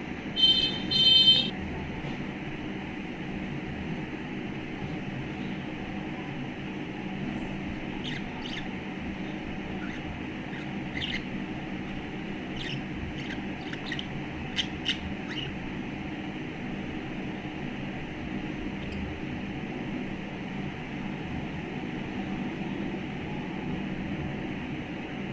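Budgerigar giving one loud, harsh chirp about half a second in, then scattered short high chirps and a couple of sharp peeps in the middle, over a steady low background rumble.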